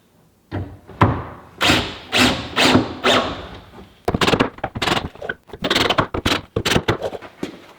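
Wooden thunks and knocks as drawers are put back into a shop cabinet: single thunks about every half second, then a quicker run of knocks and clatter in the second half.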